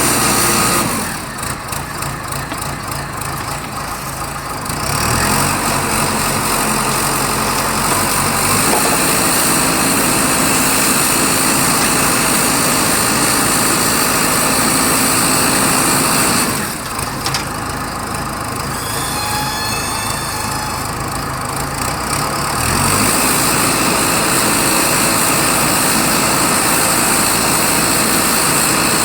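Diesel engine of a self-loading concrete mixer running steadily. The level dips for a few seconds twice, about a second in and again past the middle.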